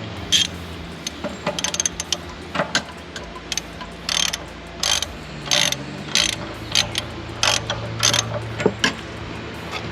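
Socket ratchet clicking in many short, irregular runs as it works the anode rod of a Suburban RV water heater.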